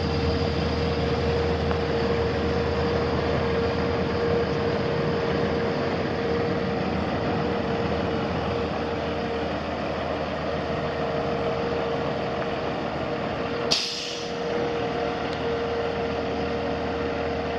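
Cummins ISX 14.9L inline-six diesel engine of a 2007 International 9400i semi truck running steadily at idle, with a steady whine over the engine note. About three-quarters of the way through comes one brief, sharp hiss of released air.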